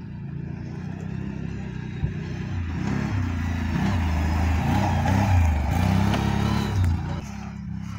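Can-Am Outlander 650 ATV's V-twin engine revving up and down as it is ridden across grass, getting louder as it passes close and fading near the end as it pulls away.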